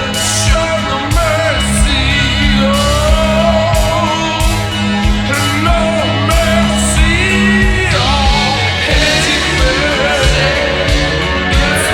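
Slowed-down, reverb-drenched post-punk rock song with a woman singing over drums, bass and guitar; the drum hits come at a steady, slow pulse.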